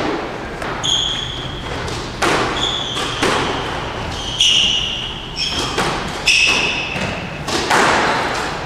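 Squash rally: the ball struck by rackets and hitting the court walls in a string of sharp hits, roughly one a second, mixed with short high squeaks of players' shoes on the court floor.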